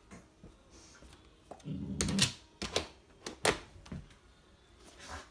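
A dog gives a short, low grumble about two seconds in, among a string of about half a dozen sharp clicks and taps as it works at a fly on a window sill.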